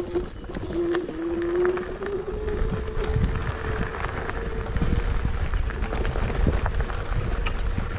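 Kugoo G2 Pro electric scooter riding over rough ground: the hub motor's whine rises in pitch over the first couple of seconds as it picks up speed, then holds steady, over a rumble and frequent knocks and rattles from the bumpy surface.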